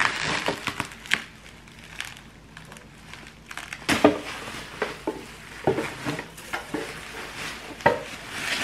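Plastic bubble wrap crinkling and rustling as it is pulled and crumpled off plastic pump bottles, with a few sharper knocks in between.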